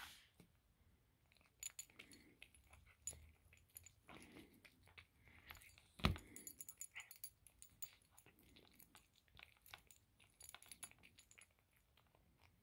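Maine Coon cat eating fried chicken: small, irregular clicks and crackles of the crisp breading as it chews and picks at the piece, with one sharp knock about six seconds in.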